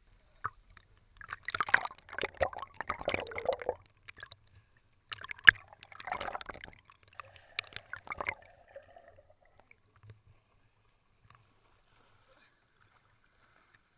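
Swimming-pool water splashing and sloshing against a waterproof action camera at the surface, in two spells of a couple of seconds each, the second with a sharp knock; after that only faint, muffled sound.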